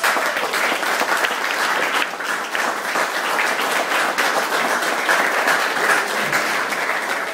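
Audience applauding steadily at the end of a reading, a dense patter of many hands clapping that starts suddenly and tapers off after several seconds.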